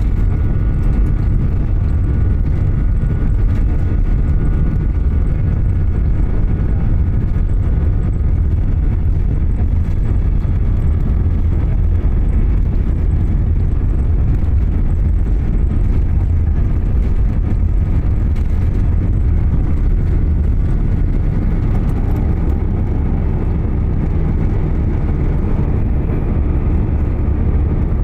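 Airliner's engines at takeoff power during the takeoff run, a steady heavy low rumble with a faint engine whine in the first part.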